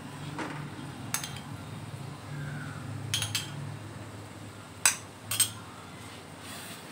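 A spoon and small bowl clinking against the kadai as green food colouring is tipped into the halwa: a few sharp clinks, one about a second in, a couple around three seconds, and the loudest two close together near five seconds, over a low steady hum.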